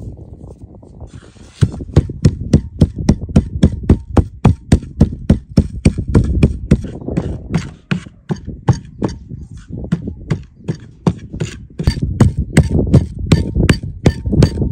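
Knife chopping vegetables on a cutting board: a fast, even run of strokes, about four a second, each with a dull thud. It eases off about halfway through, then picks up again.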